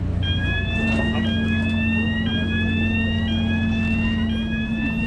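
An electronic warning signal on a Amsterdam GVB ferry: a rising sweep of tones about a second long, repeating about once a second. Under it runs the steady hum of the ferry's engine as it comes in to the landing.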